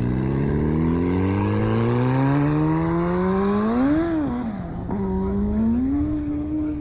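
Sport motorcycle accelerating hard down a runway, its engine note climbing steadily in pitch. About four seconds in the pitch drops sharply at a gear change, then climbs again and levels off as the bike pulls away into the distance.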